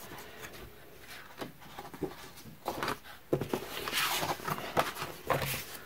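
Handling noise of stencil templates: light rustles and small clicks and knocks, with a louder rustling stretch from about three and a half to five seconds in.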